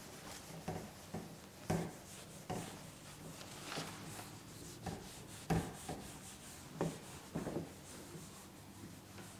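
A whiteboard being wiped clean with a cloth eraser: irregular rubbing and swishing strokes across the board surface, broken by a few sharp knocks.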